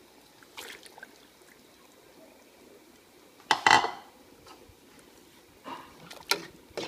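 Small whole fish tipped from a bowl into a pot of hot soup broth: a loud splash about halfway through, with a few shorter splashes and knocks against the pot near the end.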